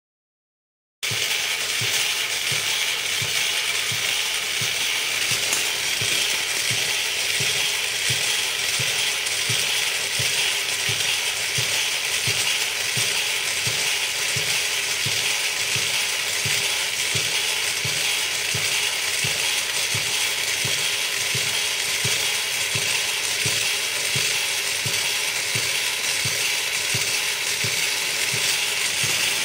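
Small electric motor and gearbox running steadily with a high whirr, its cams giving a regular low tick about twice a second as they drive a motorised doll's crawling arms. It starts about a second in.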